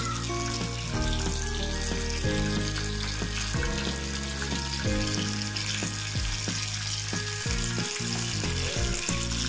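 Two whole silver pomfret (rupchanda) shallow-frying in hot oil at medium heat, a steady sizzle and bubble. Background music with held notes plays under it.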